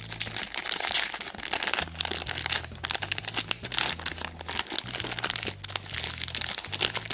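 Plastic toy packaging crinkling and crackling in irregular bursts as it is handled and opened by hand.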